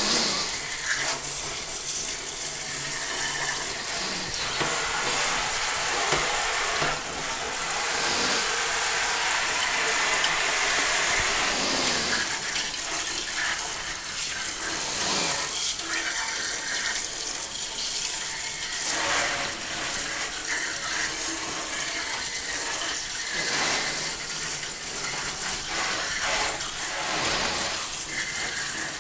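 Water running from a kitchen sink sprayer into a stainless steel sink while a long bristle brush scrubs the bore of a freshly machined two-stroke cylinder. The water makes a steady rush that swells and dips as the brush and part move through the stream.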